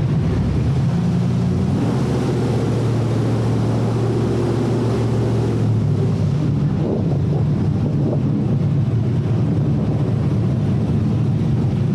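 Airboat's engine and propeller running loud and steady as the boat travels, its pitch shifting a few times, with wind noise on the microphone.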